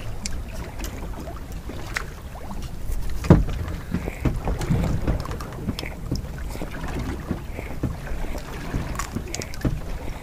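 Steady low wind and sea noise aboard a small boat. Scattered clicks and a sharper knock about three seconds in come from handling a dogfish and fishing line while unhooking it.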